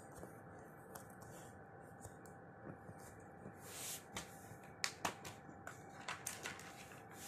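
Faint scattered clicks and short scratchy rustles of small things being handled, busiest in the second half, with the sharpest click a little under five seconds in, over a steady faint hiss.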